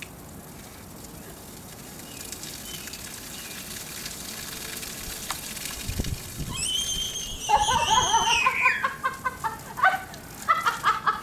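Garden hose spraying water, a steady hiss that grows louder. About six and a half seconds in, a child starts squealing with a high cry that falls in pitch, followed by more shrieks and squeals while being sprayed.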